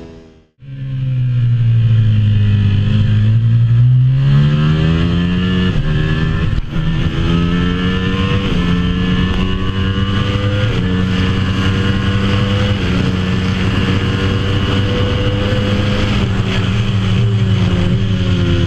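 Ducati Panigale V4's 1103 cc V4 engine pulling hard at high speed. The engine note sinks for a couple of seconds, then climbs as it accelerates, breaks briefly at a gearshift about six and a half seconds in, then stays high and steady while rising slowly.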